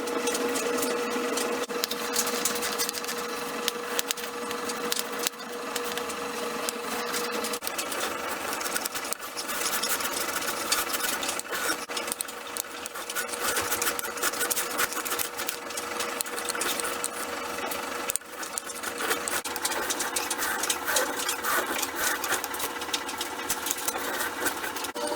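Small electric power tool running with a fast, dense rattle, most likely shaping the wooden rear handguard. A steady hum runs with it for the first seven seconds or so, drops away, and comes back near the end.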